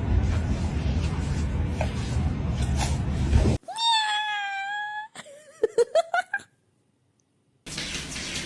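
A steady noisy rush up to about halfway, then a cat meowing: one long, even call of over a second, followed by shorter wavering cries mixed with a few sharp clicks.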